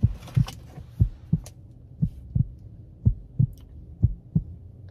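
Heartbeat sound effect: pairs of short, low thumps (lub-dub), about one pair a second, over a faint steady low hum, used as a suspense cue.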